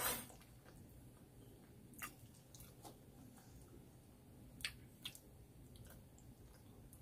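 A person slurping a mouthful of saucy instant noodles right at the start, then chewing quietly, with a few short sharp clicks over the next few seconds.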